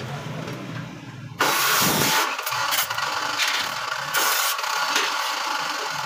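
Stick-welding arc on steel bar crackling and sizzling: it strikes suddenly about a second and a half in and burns with uneven surges for several seconds. A low steady hum runs beneath it before the arc strikes.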